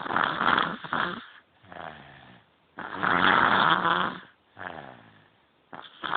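Baby snoring in its sleep: loud rasping snores about every three seconds, each followed by a softer breath with a falling tone.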